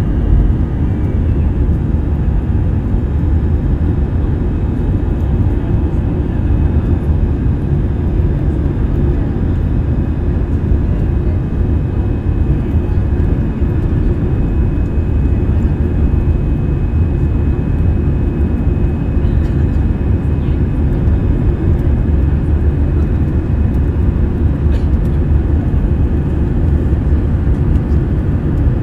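Airbus A320 cabin noise during the climb after takeoff: a steady, loud low drone of the engines and airflow, heard from a window seat over the wing, with a faint steady high whine above it.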